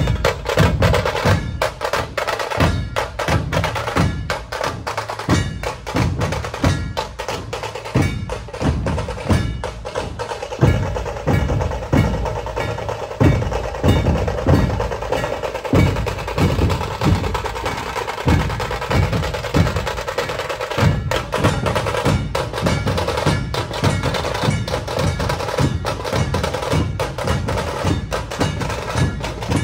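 Maharashtrian dhol-tasha ensemble playing: massed dhol barrel drums strike a steady, evenly spaced beat under a continuous rapid roll (tarri) on the tasha drums.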